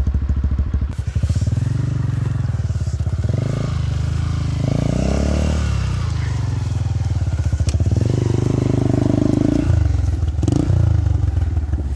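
Dirt bike engine running, revving up and down in short swells as the bike is walked uphill through wet grass under its own power.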